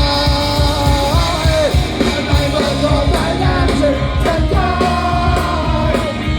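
Punk rock band playing live at full volume: shouted vocals over guitar, bass and fast drums.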